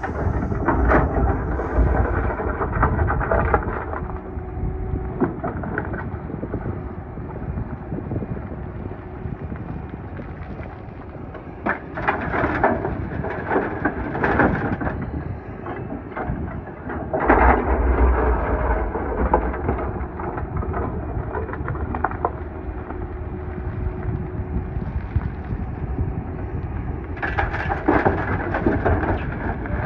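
Doosan DX420LCA excavator's diesel engine running under load, heard inside the cab with a deep rumble. Gravel clatters in bursts several times as the bucket digs and dumps. The heaviest rumble and clatter come a little past halfway.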